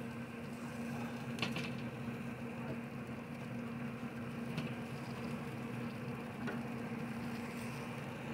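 Steady low hum of a running grill-smoker, with a few light clicks of metal tongs against the grill grate as meat is lifted off.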